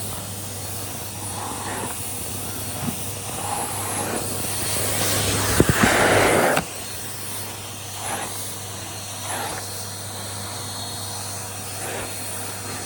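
Henry 160 compact vacuum cleaner running steadily with a low motor hum while being pushed over low-pile carpet. About halfway through, the air rush grows louder for around two seconds with a few light knocks, then drops back suddenly.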